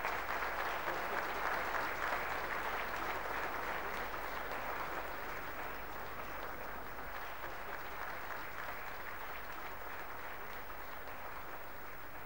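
Audience applauding, a sustained clapping that slowly dies down.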